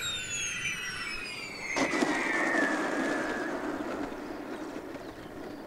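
Wraith RC jet's gas turbine whining, its pitch falling. About two seconds in comes a sharp bang, followed by a rushing rumble that slowly fades.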